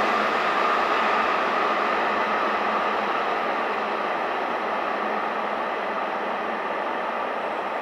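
A freight train of hopper wagons rolls away on the line. Its wheels and track give a steady rushing noise that slowly fades as it recedes.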